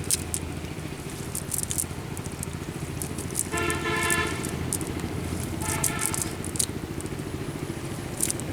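A motor running steadily, with scattered clicks and knocks. Two horn toots sound, a longer one about three and a half seconds in and a shorter one about two seconds later.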